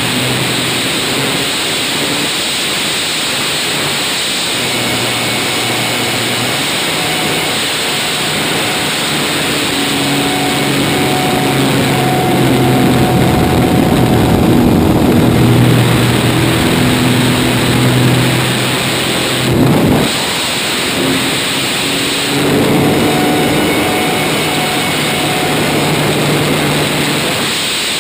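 Pitts S-1 aerobatic biplane's piston engine and propeller running in flight, under a heavy rush of wind over the camera. The engine note shifts up and down as power and airspeed change through the manoeuvres, growing louder around the middle.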